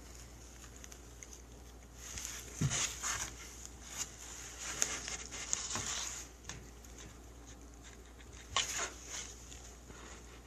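A cat scratching and scuffling in a box while it plays: bursts of scratchy rustling with a few knocks, in two spells, the second one short, near the end.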